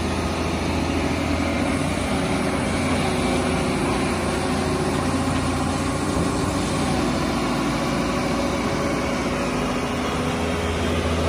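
Doosan DH150W-7 wheel excavator's diesel engine running steadily while the boom and arm are worked, with a brief dip in the deepest part of the engine note about eight seconds in.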